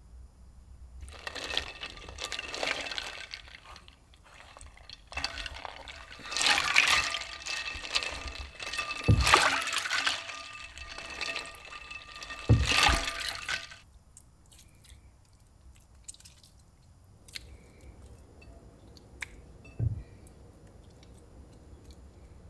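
Hands kneading and washing fresh butter in a bowl of ice water: irregular sloshing and splashing of water and ice from about a second in until past the middle. After that it goes much quieter, with only a few light taps.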